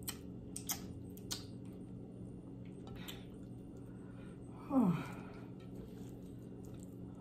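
Quiet mouth sounds of someone eating by hand: a few soft clicks in the first second and a half, then about five seconds in a short hummed sound falling in pitch, over a steady low background hum.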